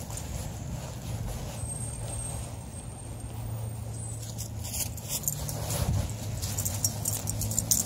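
Light metallic jingling and clicking of dog collar and leash hardware as the dogs walk, coming in irregular bursts, over a low steady hum.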